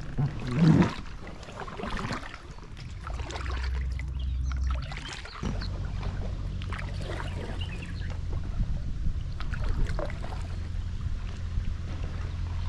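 Canoe paddles dipping and splashing in the water stroke after stroke, the loudest splash just under a second in. A low steady rumble sets in suddenly about halfway through.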